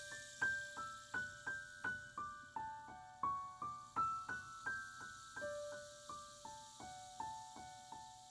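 Live keyboard music: a slow melody of single struck notes, about two a second, each ringing and fading, with a lower note held beneath them in places.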